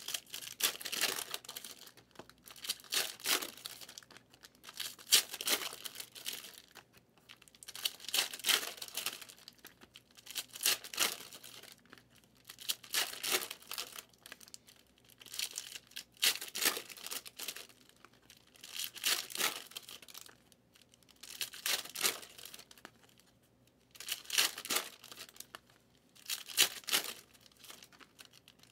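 Trading-card pack wrappers being torn open and crinkled by hand, one pack after another. The wrapper is handled in short bursts about every two to three seconds, around a dozen in all.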